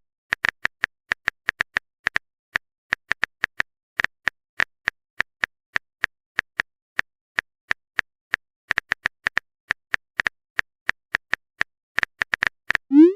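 Typing sound effect: a run of short, sharp keyboard-style clicks, two to four a second and unevenly spaced, with silence between them. A quick rising swoosh comes at the very end.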